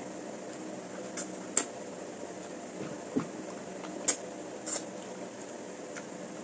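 Spoon and fork clinking against a plate or bowl while eating, about four sharp clinks and a duller knock, over a steady low hum.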